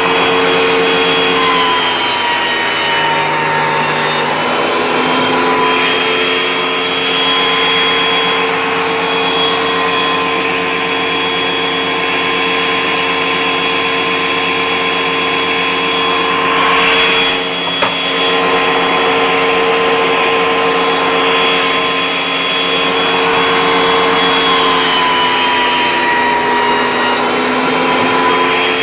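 Benchtop thickness planer running steadily with a high whine. Its pitch sags as a board is fed through the cutterhead about two seconds in, and again near the end, the motor briefly loaded by the cut.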